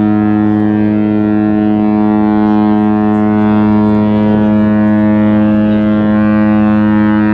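Deep ship's horn sounding one long, steady blast, part of the salute of ships' horns and whistles after a ship christening.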